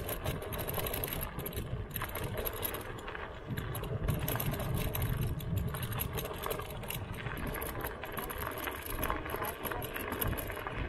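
Slidefox NT electric kick scooter riding along: steady road and tyre noise with frequent small rattles, and a low rumble that swells in the middle.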